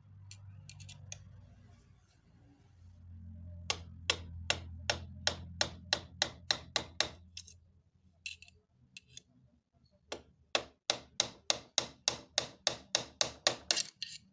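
Black household sewing machine running under its belt-driven electric motor, its mechanism clacking in two runs at about four to five clicks a second, the second run quickening toward the end. A low motor hum runs under the first run.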